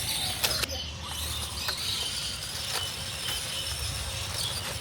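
Small electric motor of a toy RC Jeep whining high and slightly wavering as it drives, over a low rumble with a few light clicks.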